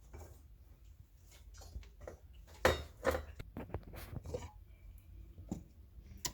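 Scattered knocks, clicks and light clatter of kitchen things being handled, with no motor running.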